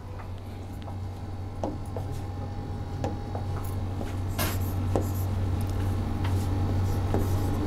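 Stylus writing on an interactive whiteboard screen: a scatter of light taps and short scratches as strokes are drawn, over a steady low hum.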